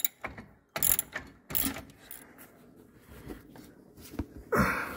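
Socket ratchet wrench clicking in several short bursts as it is worked back and forth on a bolt.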